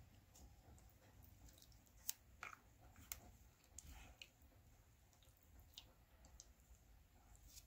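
Faint, scattered clicks and ticks of a plastic fork against a plastic takeout container as it turns and lifts saucy fettuccine, over near silence; the sharpest clicks come about two and three seconds in.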